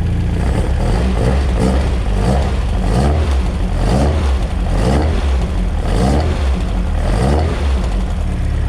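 Peugeot 205 GTi's Mi16 four-cylinder engine running just after start-up, its note rising and falling over and over, about once a second. It has a new inlet manifold gasket fitted to stop a suspected air leak behind a poor idle, and is idling a lot better.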